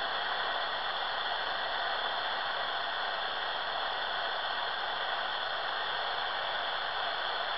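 Steady hiss and static from a Silvercrest SWED 250 A1 shortwave receiver tuned to 14.215 MHz in FM mode, with no voice coming through.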